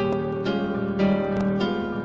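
Background music of gently plucked strings, harp-like, with a new note or chord struck about every half second.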